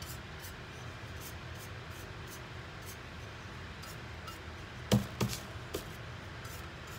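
Paintbrush working paint onto a painted tumbler: faint light ticks over a steady low room hum, with two sharp knocks about five seconds in.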